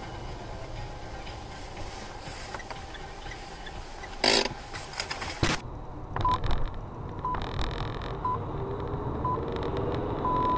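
Steady rumble of a car on the road, with one short loud burst of noise about four seconds in. In the second half, four short high-pitched beeps come one second apart, then a longer beep at the same pitch near the end. The pattern is that of radio time-signal pips playing in the car.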